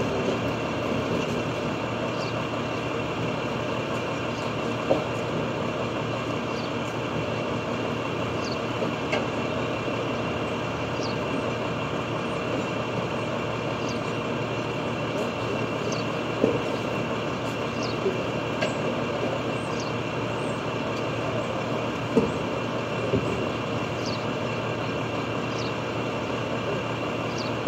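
International garbage truck with a Heil body running steadily at a standstill, a faint steady high whine under the engine, with a few short knocks and bangs now and then.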